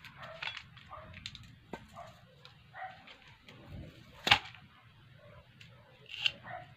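Short, high squeaks about once a second while a small drink container's pull tab is worked. About four seconds in comes one sharp snap as the tab tears, then a smaller snap near the end.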